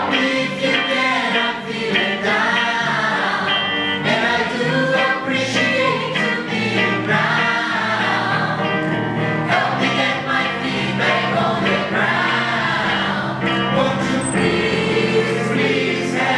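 Cast of a stage musical singing together in chorus, men and women, over instrumental backing that includes an electric guitar.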